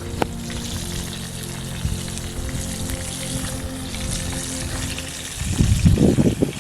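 Chicken frying in hot oil, with a steady sizzle. Loud low rumbling knocks come in about five and a half seconds in.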